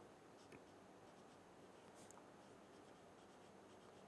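Marker pen writing on paper: faint, short scratching strokes, a couple a little louder than the rest, over quiet room tone.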